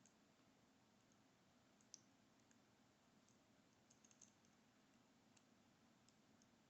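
Faint, scattered small metallic ticks, the sharpest about two seconds in and a few close together around four seconds: a lock pick working the pin stacks inside a 6-pin 50mm brass Chalet padlock during single pin picking.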